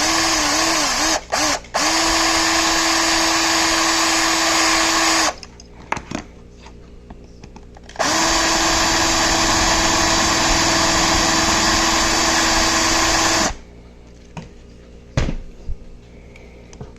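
Small power drill drilling at a rivet in a die-cast toy car: a few short bursts, then two steady runs of several seconds each with a pause between. The bit is not getting through the rivet.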